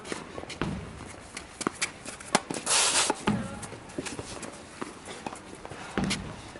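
Tennis being played on a hard court: sharp knocks of racket on ball and the ball bouncing, with shoes stepping and scuffing, and a brief loud hissing scrape about three seconds in.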